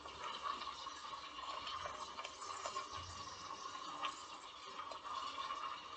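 Toy remote-control car's small electric motor and gears running with a steady whine, with a few faint ticks.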